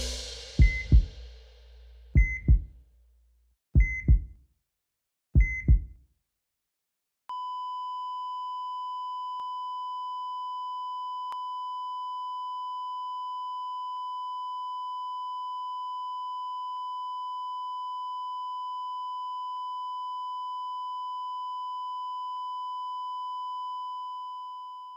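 Heart-monitor sound effect: four beeps, each with a low thump, about a second and a half apart, then from about seven seconds in one long steady flatline tone that fades out at the very end.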